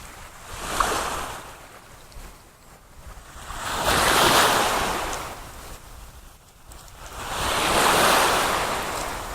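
Waves washing in three slow surges, each swelling to a wide hiss and falling away, about three to four seconds apart.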